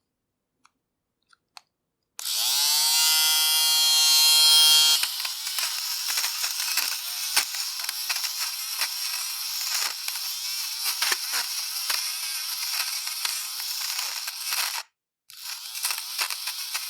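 Electric fabric shaver switched on about two seconds in, its small motor whining steadily, then worked over fabric: the whine gives way to a noisier buzz with rapid crackling as the blades cut lint and pills. It stops briefly near the end and starts again.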